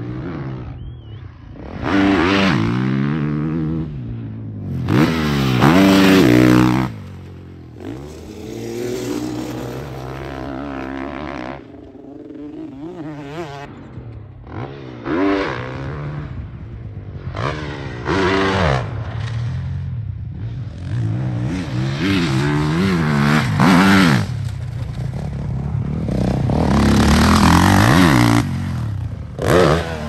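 Honda CRF450RW four-stroke single-cylinder motocross bike on the track, its engine revving up and falling away again and again as the throttle is opened and shut, swelling loudest as the bike passes close.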